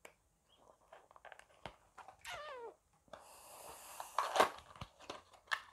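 Small cardboard product box being opened by hand: scattered clicks and taps of the flaps, a rustling slide a little after three seconds, and a sharper knock about four and a half seconds in. About two seconds in there is a short falling squeal.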